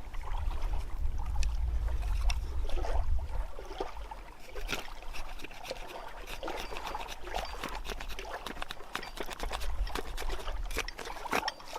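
Knife blade shaving curls off a pine stick for a feather stick: a run of short scraping strokes, irregular and a few each second.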